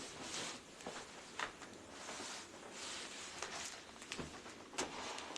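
Cardboard box and packaging being opened and handled: a rustling hiss broken by scattered sharp taps and scrapes.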